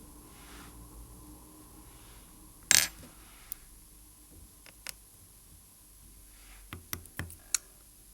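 Small metal hand tools clicking against the parts of a watch movement during disassembly: one sharp click about three seconds in, a couple of light ticks, then a quick run of small clicks near the end.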